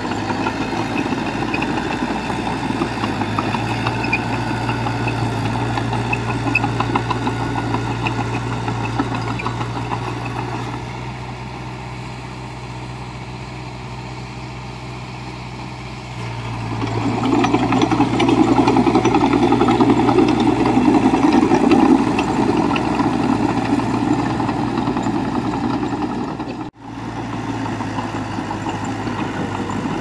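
Heavy diesel earthmoving machinery running with a steady low engine drone. It eases off for a few seconds, then grows louder with more engine noise for a while past the middle. It breaks off in a brief dropout near the end.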